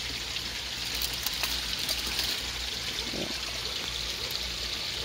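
Steady trickle and splash of running water.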